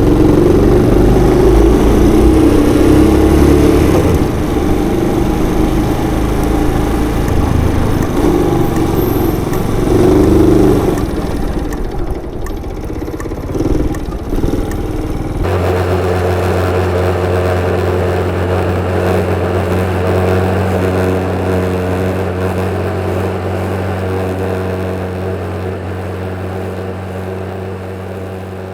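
Honda Little Cub's small single-cylinder engine running under way, with rushing wind noise and changing engine note. About halfway through the sound changes abruptly to a steady hum that slowly fades.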